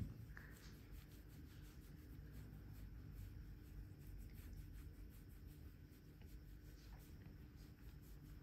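Faint scratching of fingers rubbing a tabby-and-white cat's chin and cheek fur, soft strokes repeating over a low room hum.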